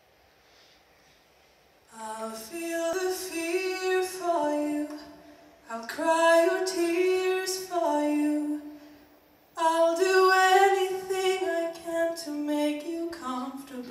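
A solo female voice singing slowly into a microphone, with no audible accompaniment, in three phrases with short breaths between them; the first two seconds are near silence before she begins.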